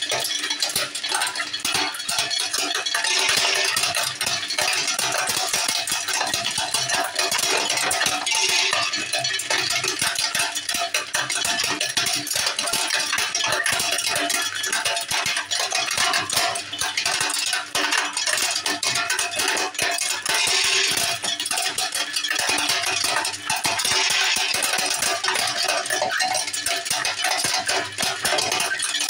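Small electric hazelnut cracker running, a steady dense clatter of nuts cracking inside it and cracked shells rattling down the chute into a bowl.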